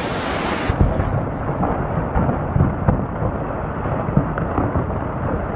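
Rockslide rumbling: a steady low roar of falling rock and debris with scattered heavy thuds. Less than a second in the sound changes abruptly and turns duller.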